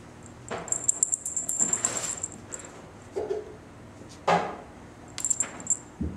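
Light rustles and taps with a faint high jingling, about one to two seconds in and again near the end, and one soft thump just past four seconds.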